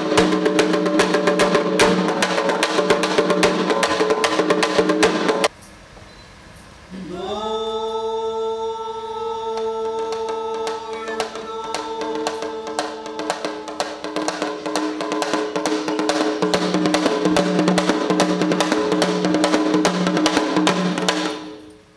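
Hand-held frame drum beaten fast with a stick under a steady held note. The drumming cuts off abruptly about five seconds in. A long sung note rises and holds from about seven seconds, and fast drumming returns beneath it a few seconds later.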